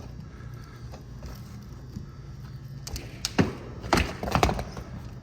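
Knocks and thuds of an old roof vent fan being worked loose and lifted out of its dried Dicor lap sealant on a camper roof. The knocks come mostly in the second half, over a steady low hum.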